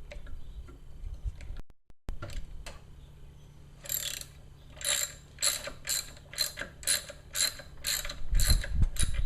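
Hand ratchet wrench clicking in regular strokes, about two a second, as bolts on the MerCruiser Alpha One lower unit's water pump housing are backed out. A few low handling knocks come near the end.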